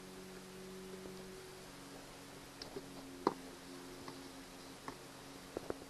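Small clicks and taps of hands and a screwdriver working a plastic camper door lock, with one sharper click about three seconds in and a quicker run of clicks starting near the end, over a faint steady hum.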